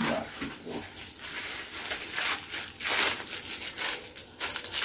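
Plastic packaging crinkling and rustling in irregular bursts as it is handled and pulled from a headphone box.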